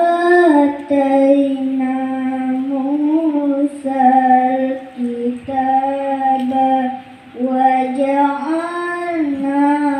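A boy's voice reciting the Quran in melodic tilawah style, holding long notes with ornamented turns and pausing for a breath about seven seconds in.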